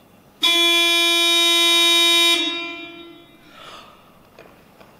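Weightlifting competition clock's warning buzzer sounding once: a steady electronic tone for about two seconds, with a short echo in the hall after it stops. It signals that 30 seconds are left on the lifter's attempt clock.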